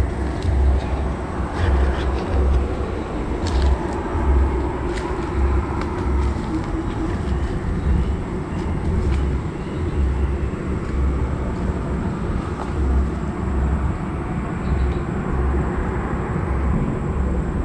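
Steady low outdoor rumble with an even background hiss and a few faint ticks, the unidentified sound he strains to hear in the undergrowth.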